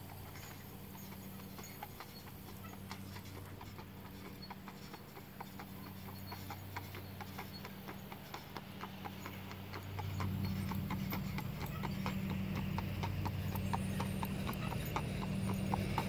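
Horse's hooves clip-clopping in an even rhythm on a paved road as it pulls a cart, over a steady low hum that grows louder about ten seconds in.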